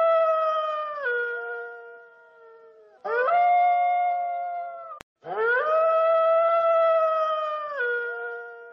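Wolf howling: three long, steady howls in turn, each dropping in pitch near its end. The second howl is cut off abruptly by a click about five seconds in.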